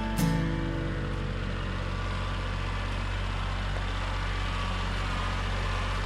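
Engine of a piece of heavy farm equipment running steadily at a low, even hum. A strummed guitar music track cuts off about half a second in.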